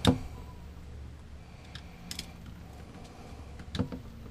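Hand-work noises while a motorhome's fresh-water pump and its fittings are handled: a sharp knock right at the start, a light click about halfway, and a double knock near the end, over a low steady hum.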